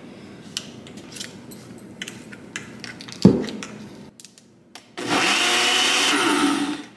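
Single-serve personal blender running for about two seconds near the end, blending frozen fruit and almond milk into a smoothie, then stopping abruptly. Before that come light plastic clicks and a knock as the cup and blade base are handled.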